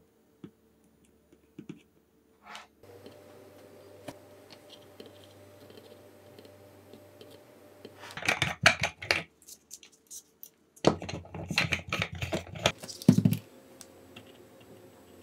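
Small clicks and rattles of hands handling a soldering iron and wire leads at an 18650 cell pack. The sounds come in two bursts of quick clattering, about eight and eleven seconds in, over a faint steady hum.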